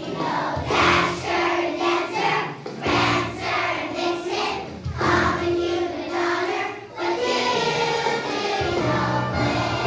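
Large children's choir singing a song together with a musical accompaniment.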